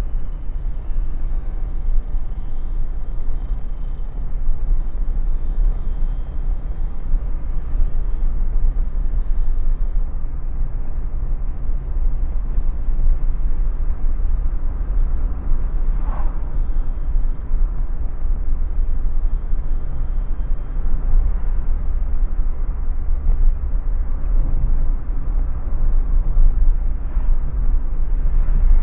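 Steady low rumble of a car's engine and tyres heard from inside the cabin while driving along a highway, with a faint click about halfway through.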